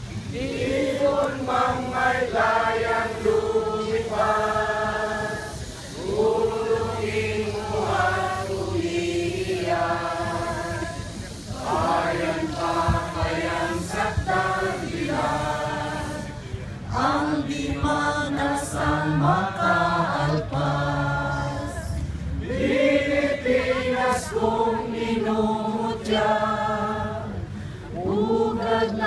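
A group of people singing together in long, held phrases of about five seconds each, with short breaks for breath between them.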